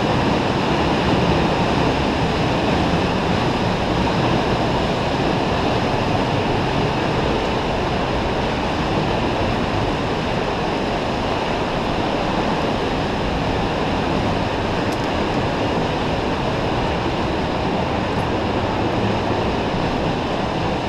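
Steady roar of a large waterfall, close by, easing slightly toward the end.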